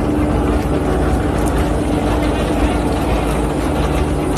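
A steady engine drone with a constant low hum over outdoor background noise.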